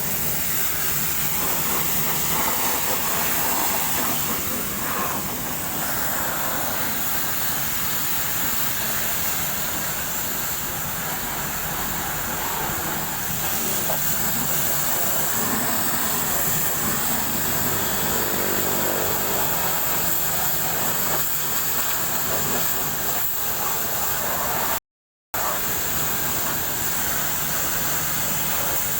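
Steady hissing spray of a high-pressure water jet washing a bus engine, broken by a brief silent gap near the end.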